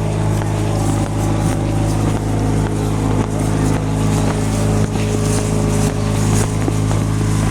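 A steady, loud motor drone with a low hum that holds an unchanging pitch throughout, like a vehicle running at constant speed.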